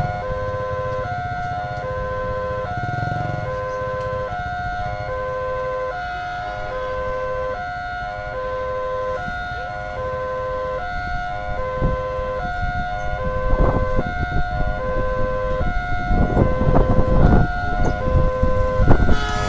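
Level-crossing warning siren sounding: an electronic two-tone alarm switching between two pitches about once a second, signalling that the gates are down for an approaching train. A loud rumbling, knocking noise swells over it in the last several seconds.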